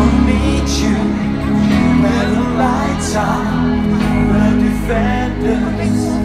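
Live pop band playing over a concert sound system, with a male lead vocal singing a ballad line, recorded from within the audience.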